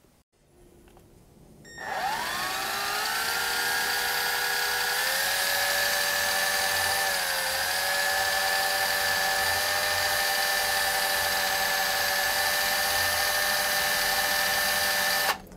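Electric drill spinning up about two seconds in, its whine rising quickly and then holding steady, as it winds fine 36-gauge Ni80 wire around a twisted 27-gauge core for an alien coil. The pitch dips briefly midway, and the drill stops suddenly near the end.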